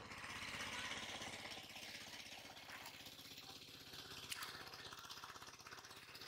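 A small engine running steadily in the background, a fast, even rattling drone.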